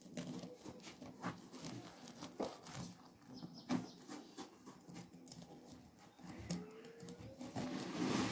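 A small knife sawing through the crisp crust of a wheat-flour harcha flatbread: a run of small, irregular crackles and scrapes as the crumbly bread gives way.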